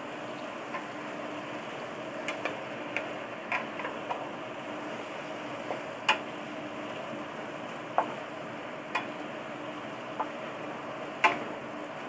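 Stir-frying in a wok on a gas hob: a steady sizzle with irregular sharp knocks and scrapes of the wooden spatula against the wok as the vegetables and squid are tossed.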